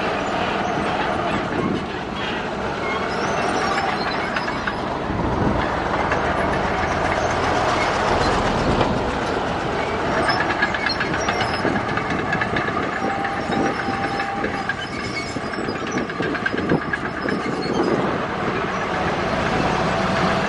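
A crawler bulldozer at work: its diesel engine runs steadily under load while its steel tracks clank and rattle continuously.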